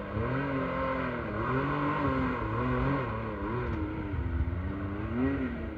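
Can-Am Maverick X3 side-by-side's turbocharged three-cylinder engine revving up and down in repeated surges as it climbs a steep, rutted clay gully under load.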